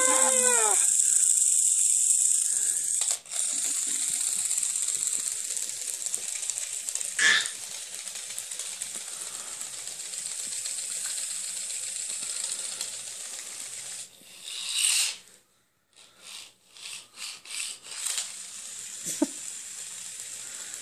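Battery-powered toy robot spider switched on, its small motor giving a steady high buzz as its legs rattle across a wooden floor. After about fifteen seconds the buzzing becomes choppy, stopping and starting in short bursts.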